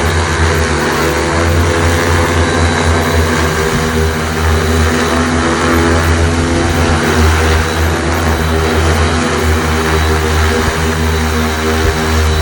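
Super X 2.0 agricultural spraying drone's rotors running in flight: a loud, steady multirotor propeller hum with a rushing wash of air, wavering slightly as the motors adjust. It is flying during a test flight after maintenance and a landing-gear replacement.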